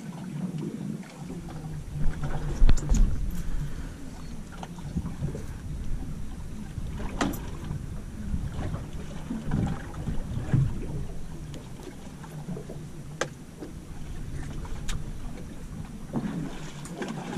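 Wind rumbling on the microphone aboard a small fishing boat. Scattered knocks and clicks come from handling a fish and tackle on the fibreglass deck, with the heaviest thumps about two to three seconds in.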